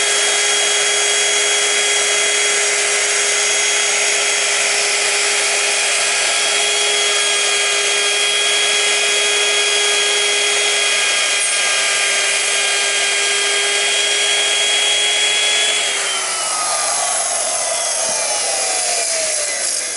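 Electric wood router running at full speed with a steady high whine over a hiss. About sixteen seconds in it is switched off, and the whine falls in pitch as the motor coasts down.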